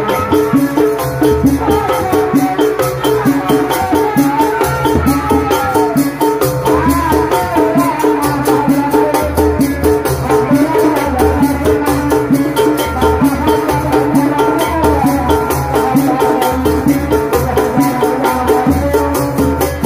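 Sundanese tanji ensemble music, loud and continuous: fast, even drumming and shaken percussion under a melody, with a heavy low bass.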